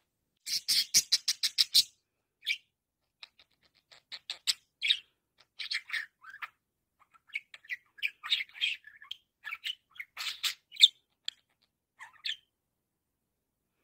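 Budgerigar chattering: a quick run of about a dozen short chirps in the first two seconds, then scattered chirps and warbles that stop about twelve seconds in.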